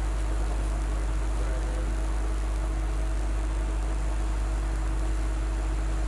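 Hot air rework gun blowing steadily with an even hum while it heats a phone board to desolder the network IC.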